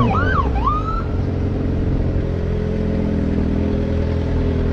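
Police siren yelping for about the first second, then cut off, with a lower tone winding down beneath it; after that a vehicle engine runs steadily at idle.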